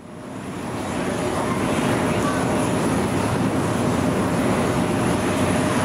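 Jet engine noise from a Bombardier Challenger 650 business jet's two turbofans as it lands and rolls along the runway: a steady, dense rush with a faint thin high whine, fading in from silence over the first second or so.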